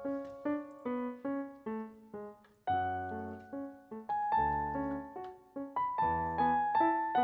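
Background piano music: a gentle melody of single struck notes, each fading away, over lower bass notes.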